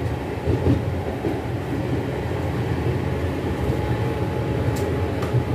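Steady running rumble of an LHB Vistadome passenger coach moving along the track, heard from inside the coach, with two sharp clicks near the end.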